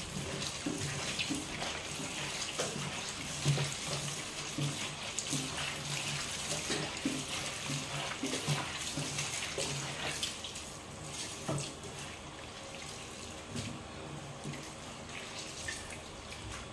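Water sloshing and splashing as fish stomachs are scrubbed by hand in a basin of water, with soft wet squelches from the rubbing. It is a little louder in the first half.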